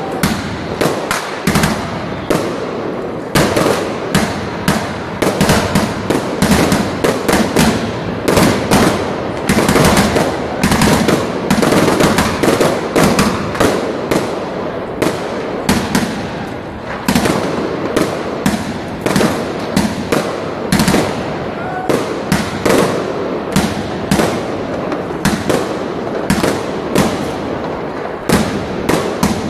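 New Year's Eve fireworks going off without pause: many overlapping bangs and crackles a second.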